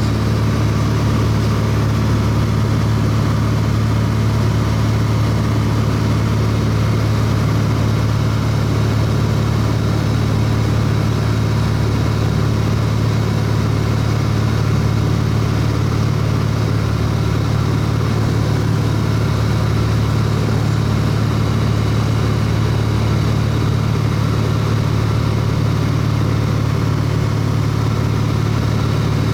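Airplane engine and propeller running steadily at cruise, heard from inside the cabin as an unchanging low hum.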